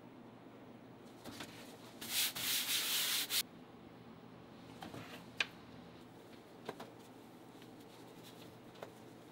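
A loud, rough scraping rub lasting about a second and a half, followed by a few faint light clicks.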